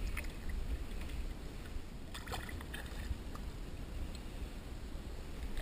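Lake water lapping and splashing against a camera held at the surface by a swimmer, over a steady low rumble on the microphone. A few sharper splashes come about two seconds in.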